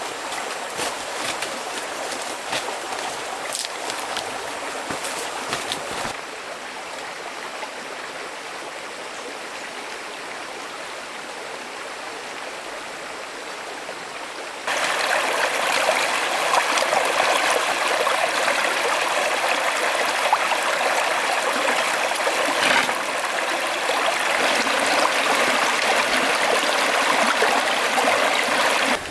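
Steady rush of a flowing stream, its level dropping about six seconds in and jumping up louder about fifteen seconds in. Faint clicks are heard over it in the first few seconds.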